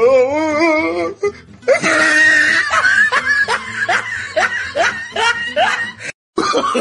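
Dubbed comedy soundtrack: a wavering voice, then a person laughing in a quick run of short rising laughs over music, cutting out briefly near the end.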